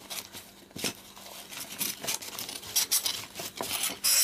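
Paper wrapping crinkling and rustling as packets of small files are handled, with scattered light clicks and a louder rustle near the end.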